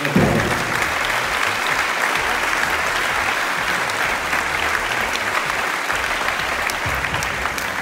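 Large crowd of seated children and young players clapping: dense, steady applause that starts abruptly.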